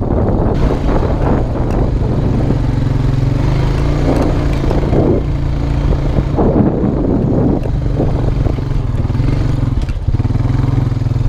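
2002 Honda Rancher 350 ATV's single-cylinder four-stroke engine running at low speed on a dirt track, with rough noisy patches over the engine around four to seven seconds in. The engine note changes and settles about ten seconds in.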